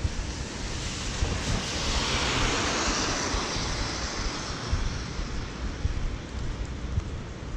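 A vehicle passing on the rain-wet road, its tyre hiss swelling to a peak a couple of seconds in and then fading. Underneath, steady rain and a low rumble of wind on the microphone.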